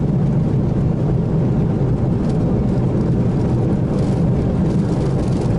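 Steady low roar inside an airliner cockpit during the landing rollout: engine noise, airflow and the rumble of the wheels on the runway, without change in level.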